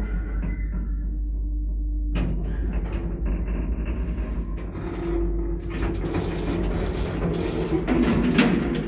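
1980s Končar traction lift arriving: a steady hum as the car travels, then about two seconds in a sudden clunk as the automatic sliding doors start to open, running on with a rattling rumble and clicks. There is a loud knock near the end.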